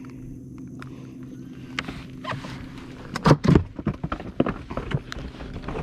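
Knocks, clatter and rustling of a freshly caught Mayan cichlid being handled and unhooked in a boat, loudest in a quick cluster a little past halfway, over a steady low hum.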